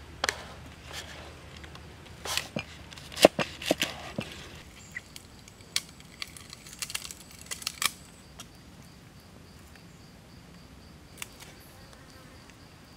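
A cleaver chopping on a wooden cutting board, a few sharp knocks in the first four seconds or so. Then lighter clicks and taps of kindling sticks being handled for a small fire, over a faint, steady, high insect buzz.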